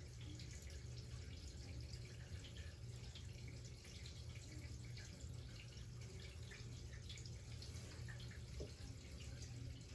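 Dry-erase marker drawing on a whiteboard: faint scattered taps and scratches over a steady low hum.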